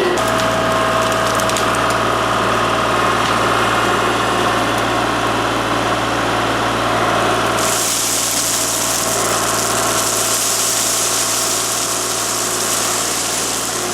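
Kubota L3301 diesel tractor engine running steadily while the front loader works river rock. Past the middle a loud, even rushing hiss joins in for several seconds.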